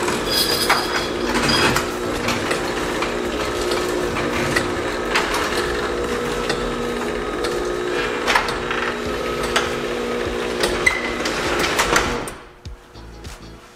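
Chamberlain RJO20 jackshaft garage door opener running with a steady hum and frequent clicks and rattles as it drives the sectional door closed, its button held down to set the close travel limit. It stops abruptly about twelve seconds in as the door reaches the bottom.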